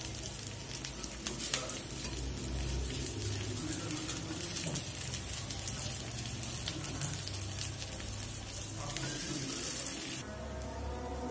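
Whole garlic cloves and sliced onions frying in hot oil in a karahi, a dense crackling sizzle while they are stirred with a wooden spatula. The sizzling cuts off abruptly about ten seconds in.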